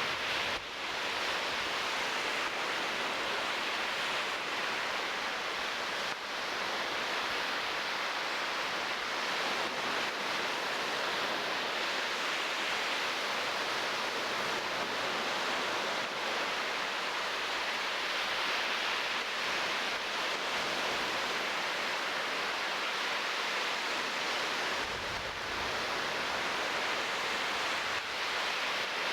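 Steady, even rushing hiss with no bird calls heard.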